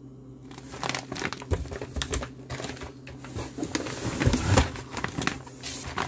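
Crinkling and rustling of plastic MRE meal pouches being handled and pulled out of a cardboard box, with a few soft knocks.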